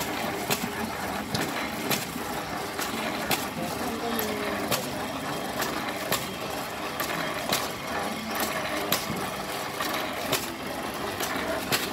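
Flywheel-driven rice-pounding machine working: a wooden lever-arm pestle knocks down into a mortar of young green rice being pounded into khao mao, at an even beat of about one stroke every 0.7 seconds, over a steady mechanical hum.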